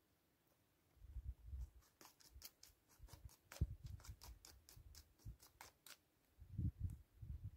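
Chukar partridge pecking seeds off a woven mat: a run of sharp beak clicks, about four a second, with a few low dull thumps before and after.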